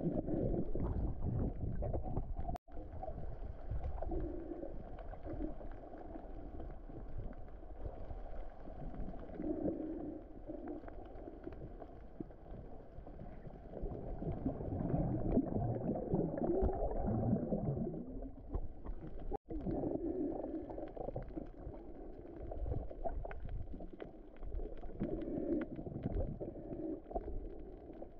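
Muffled underwater noise from a camera filming below the surface in its waterproof housing: a dull, steady rush and slosh of water with a low rumble. It cuts out briefly twice.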